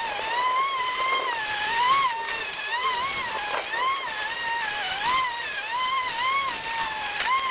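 EGO cordless electric lawn mower running, a steady high motor-and-blade whine whose pitch dips and recovers about once a second as the blade takes on grass, with a few faint ticks of debris.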